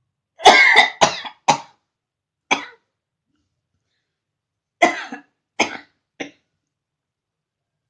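A woman coughing in fits, her throat irritated by the fumes of burning chillies: four quick coughs, a single one, then three more.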